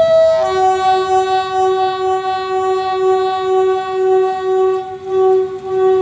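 Pakistan Railways RGE-24 diesel locomotive's air horn sounding one long, loud blast. It opens on a brief higher note, then holds a steady multi-tone chord for about six seconds.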